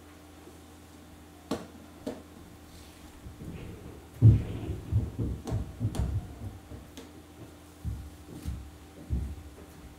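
Paper being shifted and pressed flat by hand on a drawing board: a couple of light taps, then a run of dull thumps and rubbing from about four seconds in, and a few more thumps near the end, over a low steady hum.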